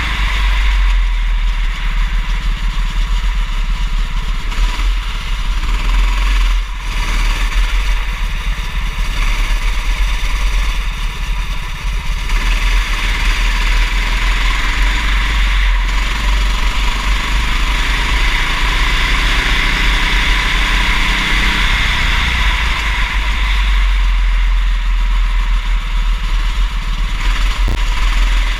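Kart engine running at race speed, its pitch rising and falling as it accelerates and slows, over a heavy low rumble.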